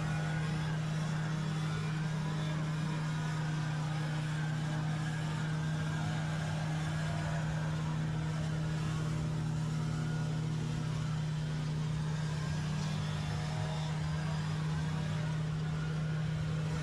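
An engine running at a steady speed, a constant even drone with no change in pitch.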